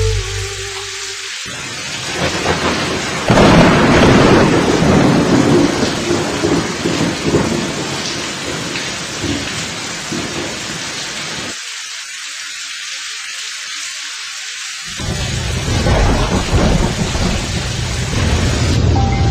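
Heavy rain with rumbling thunder, the rumble swelling loudest a few seconds in. Past the middle the low rumble drops out for about three seconds, leaving only the hiss of rain, then comes back.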